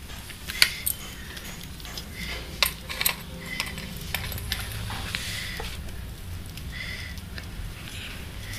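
Light clicks and taps of hands and food against a stainless steel plate, a few sharp ones in the first three seconds, over a steady low hum.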